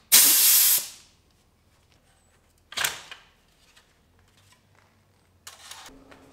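Kobalt air impact wrench briefly triggered: a loud hissing whir for under a second that then dies away. Nearly two seconds later comes a sharp snap as the wheel cover is pulled off the wheel, and near the end a weaker scrape.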